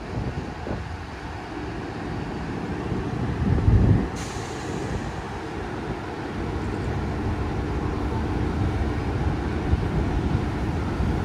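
Diesel engine of a Taiwan Railway R200 diesel-electric locomotive running as the locomotive creeps forward. It makes a low rumbling that swells briefly about four seconds in and then builds slowly, with a hiss cutting in just after the swell.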